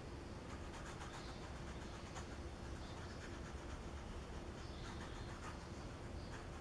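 Faint soft scratching of a round paintbrush stroking and dabbing watercolor paint across wet watercolor paper.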